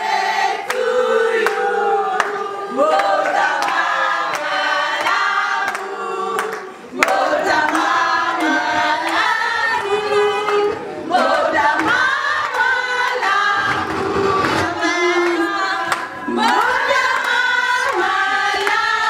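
A group of voices singing together in chorus, in phrases with short breaks between them.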